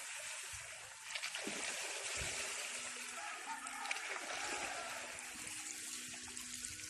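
Running water splashing and trickling, a steady rushing hiss.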